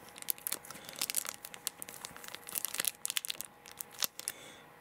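Plastic mayonnaise packet crinkling with irregular sharp crackles as mayonnaise is squeezed out of it onto shredded cabbage.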